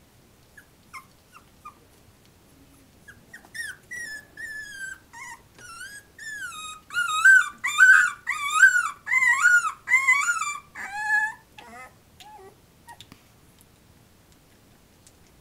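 A 20-day-old puppy whining and howling in a string of cries that rise and fall in pitch, building to its loudest in the middle and fading out near the end, after a few faint squeaks at the start: the pup is complaining.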